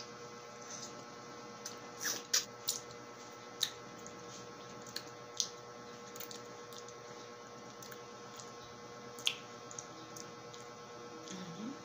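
Wet, close-up mouth sounds of someone sucking and biting lemon wedges: scattered short smacks and slurps, the loudest a couple of seconds in and again about nine seconds in, over a steady electrical hum. A brief rising vocal sound comes near the end.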